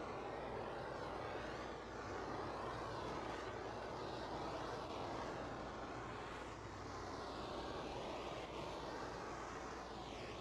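A power tool running steadily, giving a whooshing drone whose tone sweeps slowly up and down as it moves.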